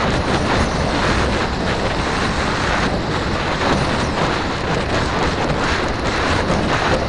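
Loud, steady rush of wind over the microphone of a camera strapped to a peregrine falcon's back while she flies.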